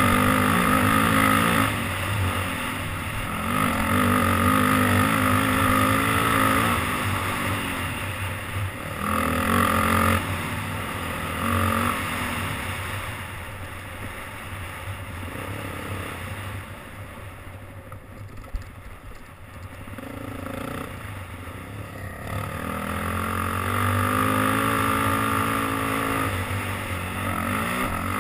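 Off-road vehicle engine revving up and down as it is ridden along a dirt trail. About halfway through it eases off to lower, quieter running for several seconds, then pulls hard again near the end.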